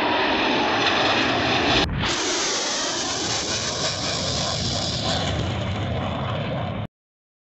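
Loud jet engine roar of jet aircraft passing, in two clips joined by an abrupt cut about two seconds in. The roar cuts off suddenly near the end.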